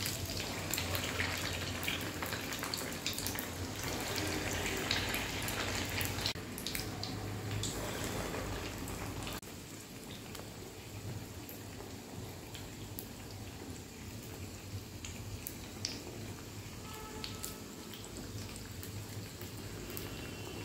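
Potato-stuffed bread rolls deep-frying in hot oil in a steel kadhai: a steady sizzle full of small crackles. It drops suddenly to a quieter sizzle about nine seconds in.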